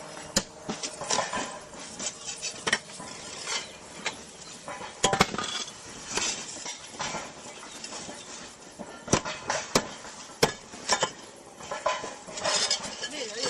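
Irregular hard clinks and knocks, roof tiles being lifted and knocked against one another.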